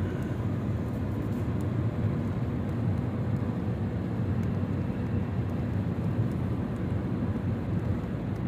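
Steady engine and road noise heard from inside a car's cabin while driving: an even low hum with no breaks or changes.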